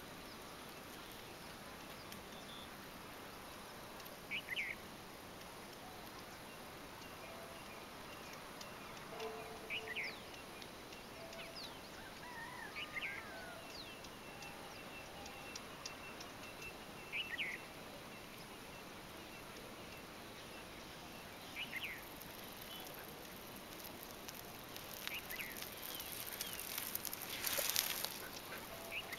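Birds chirping: short calls every four seconds or so over a steady background hiss, with a brief louder rush of noise near the end.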